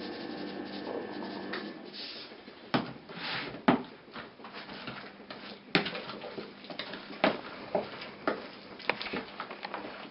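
A wooden spoon stirs and turns a wet mixture of chopped chicken, vegetables and egg in a plastic basin. It scrapes through the mixture and gives irregular sharp knocks against the basin's sides.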